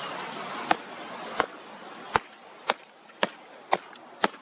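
A person stomping a foot on the ground to scare off a flock of starlings: seven sharp stomps about half a second apart.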